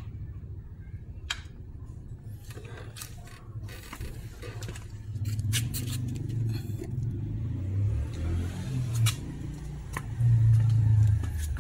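Scattered metallic clicks and scrapes as a wrench works the oil drain bolt under a small motorcycle engine. A steady low rumble runs underneath and grows louder about halfway through.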